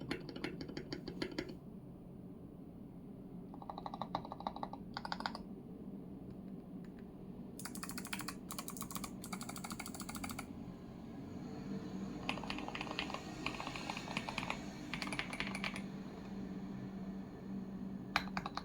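Budget mechanical keyboard with Milky Yellow linear switches and added foam being typed on, in several bursts of rapid keystrokes separated by short pauses.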